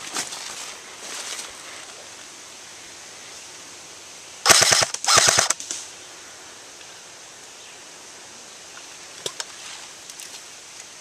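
Airsoft gun firing two short full-auto bursts about halfway through, each a rapid string of shots. Softer rustling of movement comes at the start, and a single sharp click comes later.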